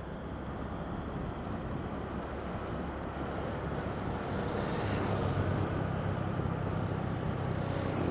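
Engine and road noise from a moving vehicle, a steady low hum under a hiss that swells a little about halfway through.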